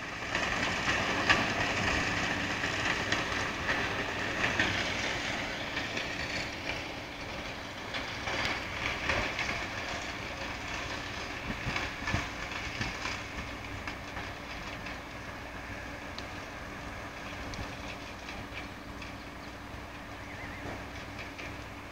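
Distant crane-fed mobile wood chipper running steadily, with irregular cracks and clanks as timber is fed through and chips are blown into a truck trailer. It is louder in the first half and eases off later.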